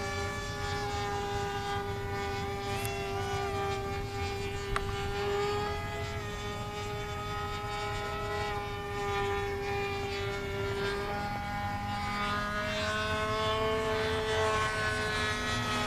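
Electric RC model jet's brushless in-runner motor and pusher propeller in flight, a high-pitched steady whine. Its pitch wavers slowly as the plane turns, and near the end it rises and then falls as the plane passes low.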